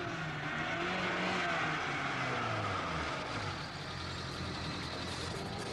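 A car driving up and slowing, its engine note falling over the first few seconds.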